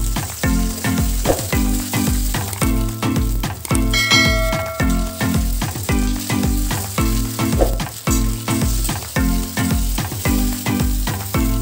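Okra pieces sizzling as they fry in oil in a steel kadhai, with spatula stirring. Background music with a steady beat runs under it and is the loudest sound.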